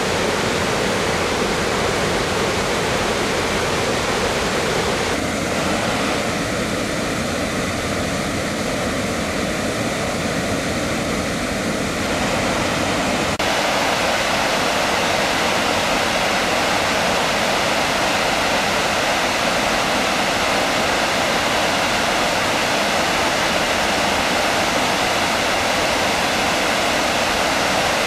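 Floodwater pouring over the rim of a reservoir's bellmouth overflow spillway and down its shaft: a loud, steady rushing of water, the reservoir full and overflowing.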